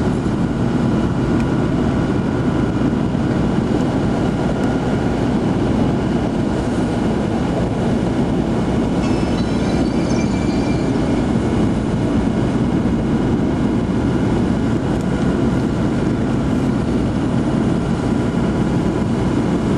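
Steady drone of a vehicle's engine and tyres heard from inside the cabin while driving on a snow-covered road, with a faint, brief high squeak about halfway through.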